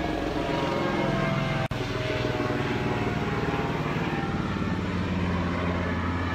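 Helicopter flying overhead: a steady rotor and engine drone with a rapid low pulsing, which cuts out for an instant about a second and a half in.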